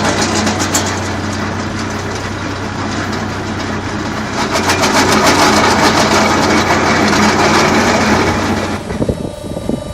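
Heavy machinery running loud and steady: an engine hum under a dense, rapid mechanical clatter, falling away about nine seconds in.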